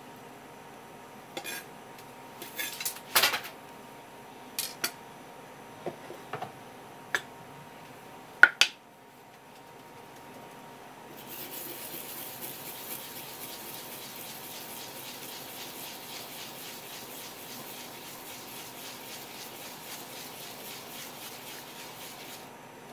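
A metal tool clinks sharply against a porcelain plate several times, loudest about three and eight and a half seconds in. From about eleven seconds, fresh wasabi root is rubbed round and round on a sharkskin grater, a steady fine rasping that stops just before the end.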